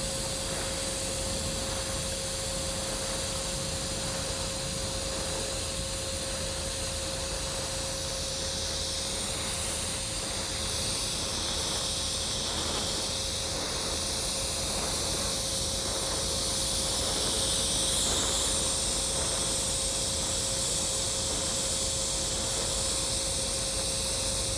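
TIG welding arc on stainless steel, hissing steadily under a constant tone; the hiss grows brighter from about nine seconds in.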